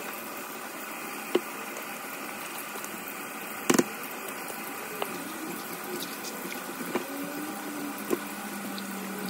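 Thick creamy sauce being poured from a plastic bowl into a slow cooker crock and spread with a spatula, with soft wet glops and squishes. A few short sharp knocks come through, the loudest nearly four seconds in.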